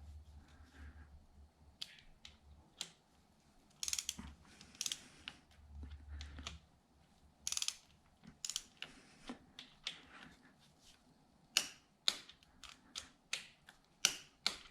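Torque wrench ratcheting in short strokes, a string of sharp clicks and rasps that come closer together in the second half, as the camshaft sprocket bolts are tightened to 20 ft-lb.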